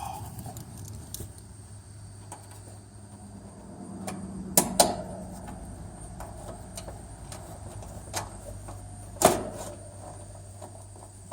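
A few sharp metallic clicks and clinks of screws and hand tools being handled on an air-conditioner condenser: two close together around the middle and another near the end. A steady low hum runs underneath.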